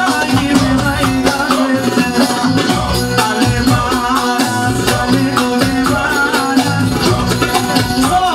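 Band music: a melody line moving over a repeating rhythm and a steady bass.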